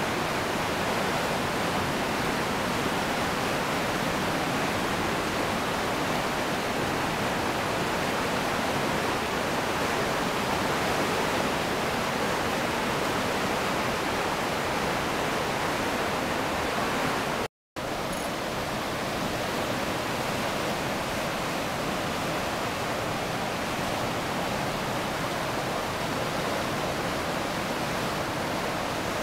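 Steady rush of a river in flood, fast muddy water churning. The sound cuts out for a split second a little past halfway.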